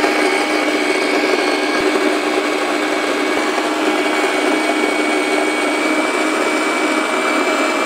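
Fellow Opus electric burr grinder, with 40 mm stainless steel burrs, grinding a 16 g dose of espresso beans at a fine setting: a steady motor whir with a constant pitch.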